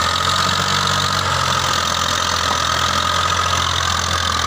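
Massey Ferguson 240's three-cylinder diesel engine running steadily under load as the tractor pulls a fully loaded trolley through soft dirt, with a steady high whine above it.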